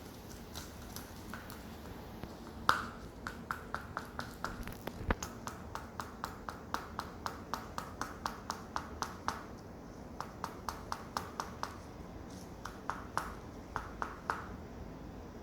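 A puppy playing with a stone: quick light clicks on a hard floor, about three or four a second, in runs of a few seconds with short pauses between them.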